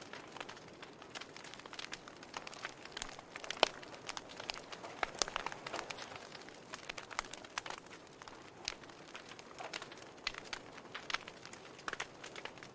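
Fire in a fireplace crackling: irregular sharp pops and snaps over a soft steady hiss, with one louder pop a little over three and a half seconds in.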